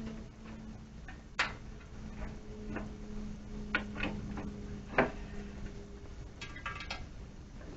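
Scattered sharp clicks and taps, the loudest about five seconds in, with a short cluster of light clinks near the end, over a faint held low note that fades away.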